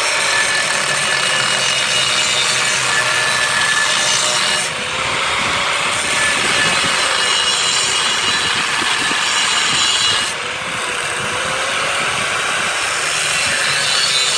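Power grinder's disc cutting and scoring steel with a continuous rasping grind and a faint wavering motor whine, easing briefly twice, about 5 and 10 seconds in, as the disc lets up on the metal.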